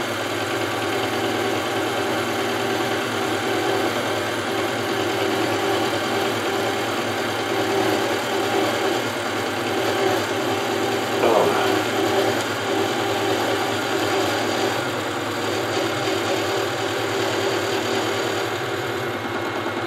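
Milling machine running steadily, its roughing end mill taking very light cuts in a block of aluminium while the part is turned on a hand-cranked rotary table.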